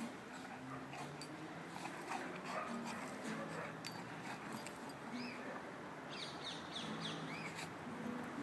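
Golden retriever puppy and adult golden retriever play-growling at each other in short low grumbles while they wrestle. A run of high bird chirps comes in near the end.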